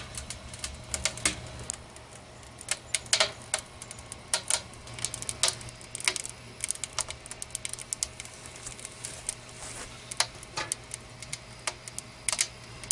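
Wood fire crackling inside a steel cylinder tent stove during its first, curing burn: irregular sharp snaps and pops, several a second.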